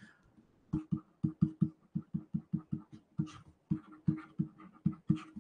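Stylus tapping and stroking on a pen tablet while handwriting: a quick, uneven run of short low taps, about four a second, starting about a second in.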